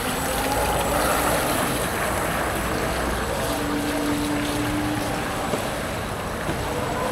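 Small electric outrunner motor of a model hydrofoil boat running steadily as the boat skims across the water, with wind rumble on the microphone.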